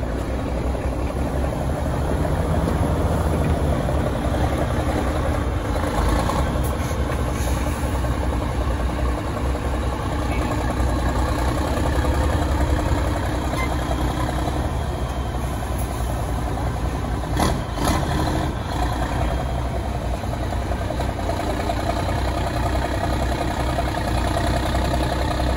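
Diesel engine of an MAN TGS 8x8 trial truck running steadily as the truck crawls slowly through a rough dirt off-road section, with a few brief clicks or knocks.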